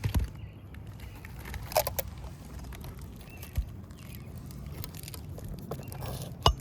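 A few sharp, separate knocks and taps from hand work on roof shingles with a hammer and nails, the loudest near the end, over a steady low rumble.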